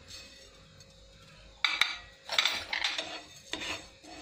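Wooden spatula stirring cumin and sesame seeds as they dry-roast on a flat nonstick pan, a run of short scraping strokes starting a little before halfway in.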